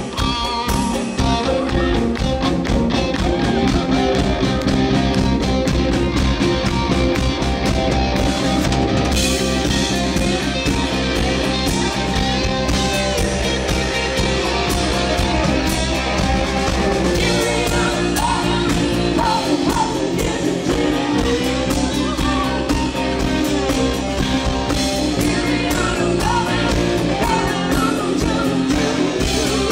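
A live rock band playing electric guitars and a drum kit at full volume. A woman's singing voice comes in over the band partway through.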